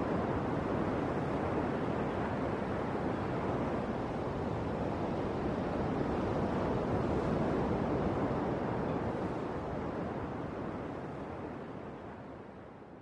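Ocean surf breaking on a beach, with wind, heard as a steady rushing noise that fades away over the last three seconds.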